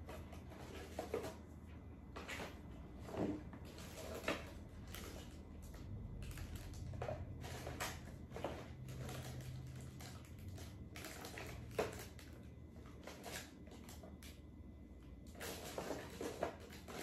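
Faint, irregular soft puffs and light handling knocks, scattered through quiet room tone, with a faint low hum for a few seconds in the middle.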